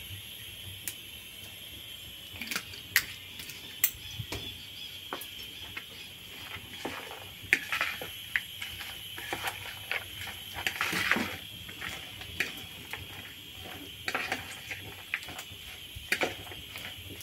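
Scattered clicks and taps of utensils against a dish as a salad is dressed with olive oil and tossed, with a longer scraping stretch about eleven seconds in. A faint steady high tone runs underneath.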